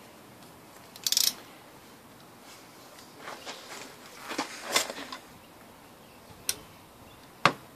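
Metal clicks and clatter of hand tools working the clutch pressure plate bolts: a cluster of sharp clicks about a second in, a rattling run in the middle, and single sharp clicks near the end, the last the loudest.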